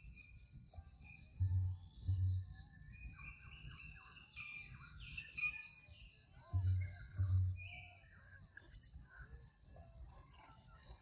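Insect chorus trilling in rapid, even pulses, breaking off briefly about six seconds in, with scattered faint chirps and a few soft low bumps.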